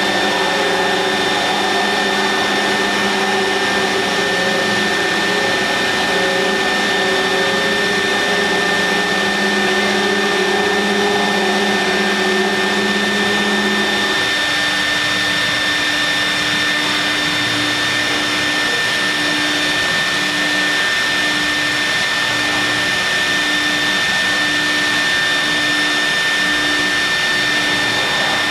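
CNC milling machine running while machining marble: a steady high spindle whine over a continuous rushing noise. About halfway through the lower tones shift, and a low hum then pulses roughly once a second.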